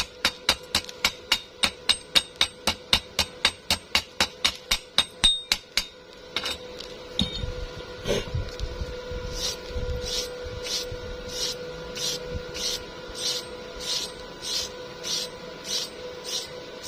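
Hammer tapping on metal in a quick even rhythm of about four blows a second, stopping about six seconds in; after that, slower scraping strokes, a little under two a second.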